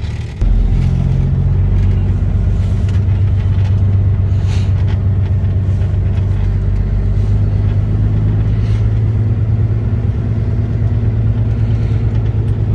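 Semi-truck diesel engine running, heard from inside the cab as a steady low drone; it gets louder about half a second in and then holds.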